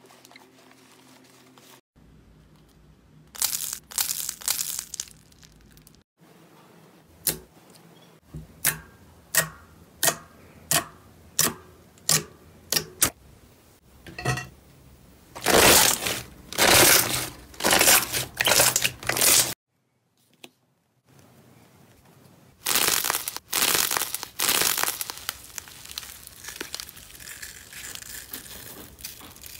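Slime being squeezed and pressed by hand: first a run of sharp pops, about two a second, then loud crackling, crinkling bursts.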